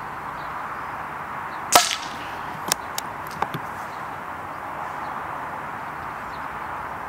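A single shot from a Daystate MK4 air rifle, sharp and short, about two seconds in. It is followed by three quieter clicks within the next two seconds.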